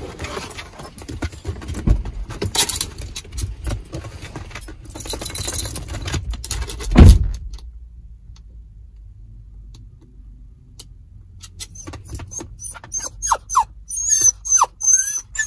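Toy poodle whining in short, falling whimpers near the end, anxious at being left in the car. Earlier, shuffling and jingling of the dog moving about on the seat, with one heavy thump about seven seconds in.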